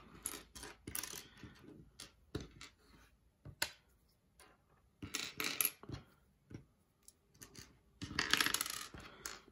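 Small plastic building bricks clicking and clattering as the pieces are handled and fitted together. There are scattered single clicks, with two denser rattling spells, one about five seconds in and one near the end.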